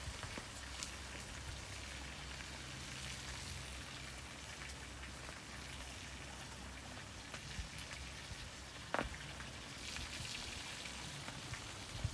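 Faint steady outdoor hiss with a few light clicks and one short, sharp knock about nine seconds in, from a stone pestle and mortar being handled.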